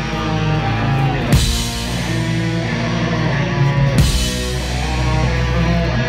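Heavy metal band music: sustained distorted guitar and bass chords, with crash cymbals struck on the drum kit about a second in and again around four seconds in.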